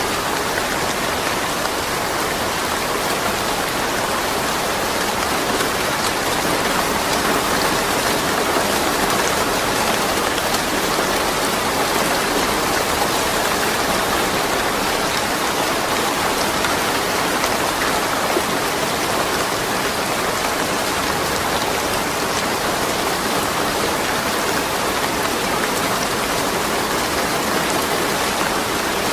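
Steady rain falling and pattering on surfaces, with no thunder.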